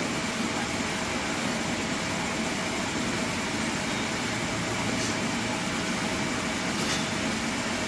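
Steady background hum and hiss carrying a couple of faint constant tones, like a running machine, with two faint ticks about five and seven seconds in.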